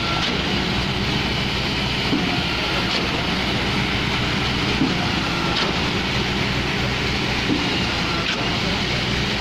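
Concrete pumping machinery: a heavy engine running steadily at constant speed, with a faint knock repeating about every two and a half to three seconds.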